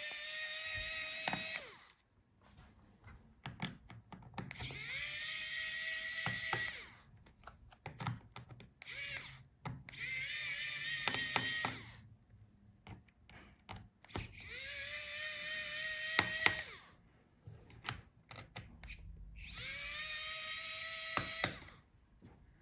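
Small electric screwdriver backing out laptop screws: five runs of about two seconds, each a motor whine that rises as it spins up and then holds steady, with light clicks of screws and tools handled in between.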